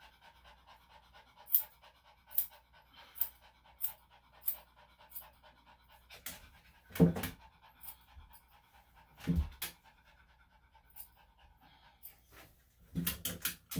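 Maltese/Shih-Tzu dog panting in short breaths, about one a second at first, with a few louder bumps of movement later on.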